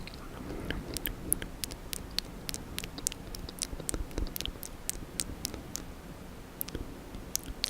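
Close-up wet mouth sounds: quick, irregular tongue clicks and lip smacks, several a second.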